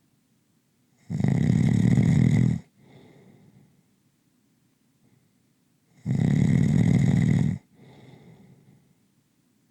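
A person snoring slowly and rhythmically: two loud snores on the in-breath, about five seconds apart, each followed by a softer exhale.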